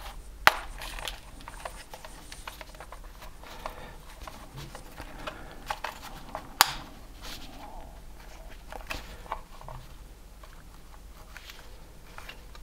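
Plastic clicks and handling rustle as the leatherette-look plastic side trim of a Panasonic HC-VXF1 camcorder is pried off its latches. A few sharp snaps stand out, the loudest about half a second in and again past the middle, over a faint low hum.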